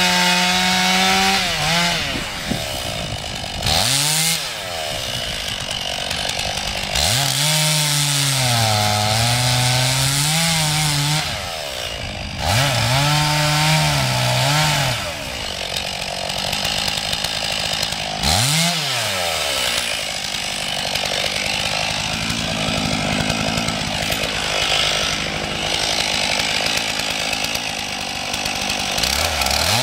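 Stihl MS 461 two-stroke chainsaw cutting into the base of a standing tree trunk. The engine speed keeps rising and falling as the chain loads up in the wood and frees again, with several dips toward idle followed by revving back up.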